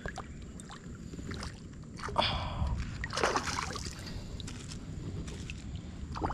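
Water sloshing and lapping, with two short splashes about two and three seconds in.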